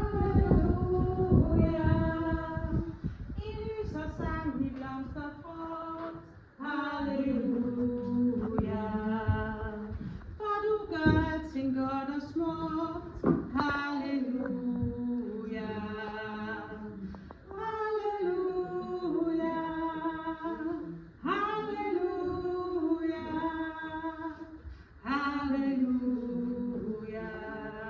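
Unaccompanied solo singing: a slow melody in phrases of long held notes, with short breaths between them.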